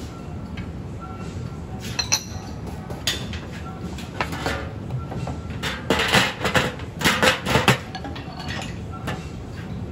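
Stainless-steel cookware clinking and clattering on a bánh cuốn steamer pot: a few light clinks of the ladle, then a louder run of metal clatter about six to eight seconds in as the conical steel lid is set on. A steady low hum runs underneath.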